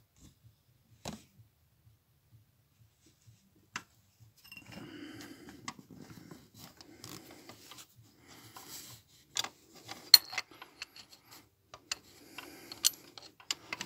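A socket wrench on a new brass engine warm-up sensor, being turned to tighten it in place, metal on metal. After a few isolated clicks, irregular scraping and rubbing with sharp metallic clicks starts about four seconds in.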